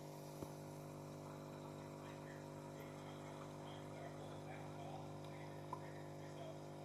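Steady low electrical hum, with two faint clicks.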